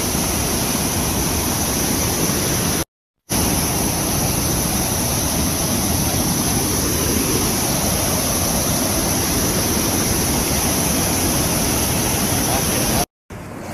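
Hail and heavy rain coming down hard: a loud, dense, steady hiss of falling stones and water. It breaks off to silence twice, briefly, about three seconds in and near the end.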